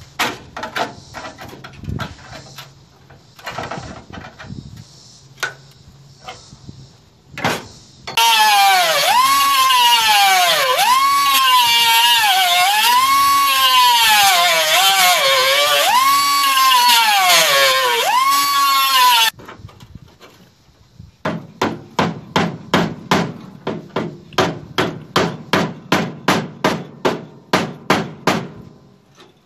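Scattered knocks, then an air-powered cutoff wheel cutting through the steel weld beads of the A-pillar support bracket for about ten seconds, its whine swooping up and down in pitch as it bogs under load and picks up again. After it stops comes a steady run of hammer blows on metal, about two or three a second.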